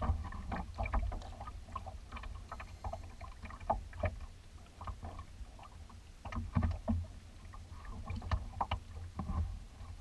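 Choppy water lapping and slapping against a kayak's hull: irregular small splashes and knocks over a steady low rumble.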